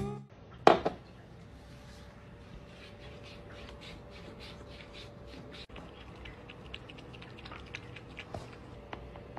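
Cat lapping water from a drinking glass: quick, soft licking clicks, about three or four a second, over a faint steady hum. A single short, sharp sound comes just before the lapping, less than a second in.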